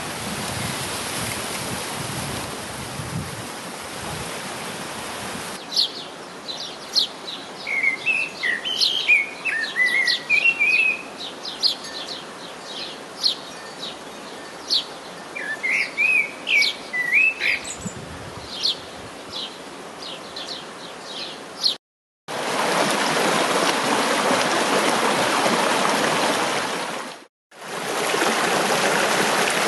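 A steady rushing noise with low rumbles at first. After about six seconds, songbirds sing over a quieter background, with many quick high chirps and short warbled phrases. After a brief cut to silence about 22 seconds in, a stream rushes loudly over rocks, with a short break near the end.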